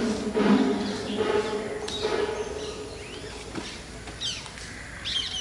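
Music fading out over the first two seconds, then birds calling with short chirps that sweep up and down, loudest near the end.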